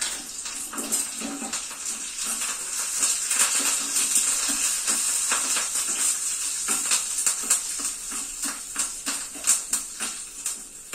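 Tempering sizzling in hot ghee in a small pan: a steady hiss with many sharp crackles as mustard seeds pop, with curry leaves and asafoetida frying in it.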